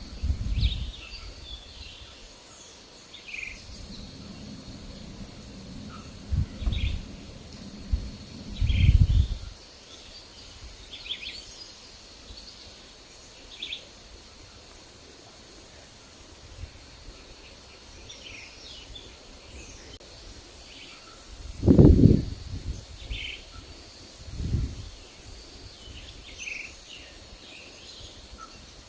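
Wild birds chirping in short, scattered calls, over wind gusting across the microphone as low rumbles. The strongest gusts come about nine seconds in and again about 22 seconds in.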